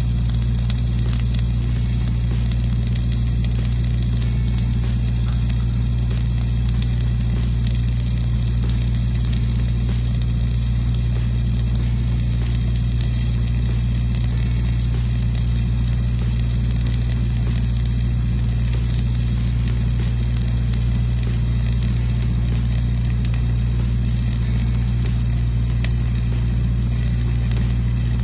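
Gas-shielded flux-cored welding arc sizzling and crackling steadily, with no break, over a continuous low hum.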